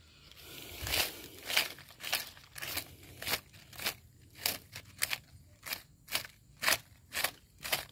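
Quick scratchy rubbing strokes, about two a second, from a hand rubbing a dog's head and neck as it lies on dry leaves.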